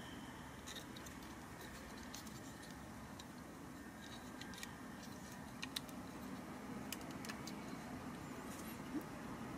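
Faint, scattered plastic clicks and rubbing from a Transformers action figure's joints and parts being handled and folded during transformation, with a few sharper clicks past the middle.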